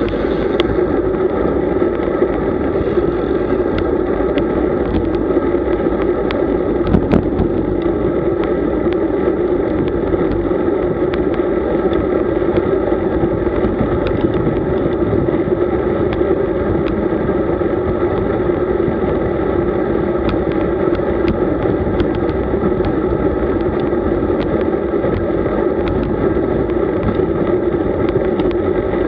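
Steady wind and road rumble on the microphone of a camera riding along on a road bicycle at speed, with scattered faint clicks.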